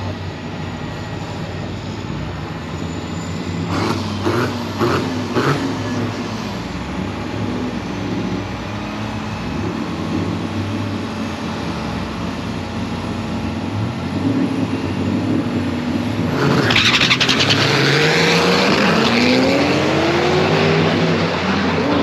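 Drag race car engine running at the strip, with a few sharp cracks about four to five seconds in. About three-quarters of the way through it turns loud as a car launches, its engine note rising steadily as it accelerates away down the track.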